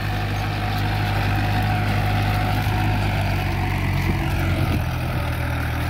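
Mahindra Sarpanch 475 DI tractor's diesel engine running steadily under load while pulling a 14-inch plough through the soil. The engine speed holds even and does not drop.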